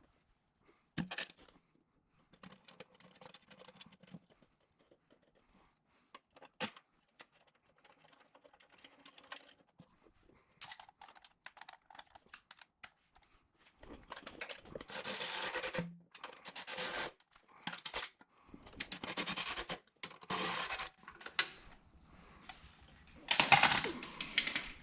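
Hands-on shop work with parts and tools: scattered light clicks and taps, then from about fourteen seconds in a series of scraping, rustling bursts, the loudest near the end.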